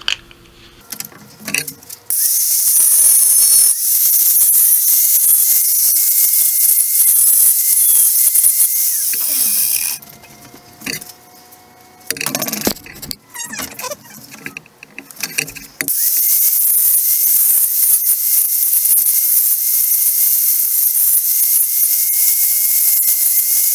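Hand-held power cutting tool cutting notches into a hood-mount bracket piece: two long, loud, high-pitched runs with a steady whine, one starting about two seconds in and stopping near ten seconds, the other starting around sixteen seconds. Short knocks and handling sounds fall between them.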